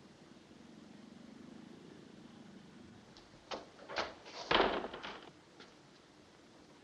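A door being unlatched and opened: sharp clicks and knocks, then a louder clatter about four and a half seconds in.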